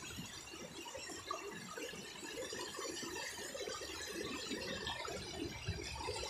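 River water running over rocks in shallow rapids, a steady rushing.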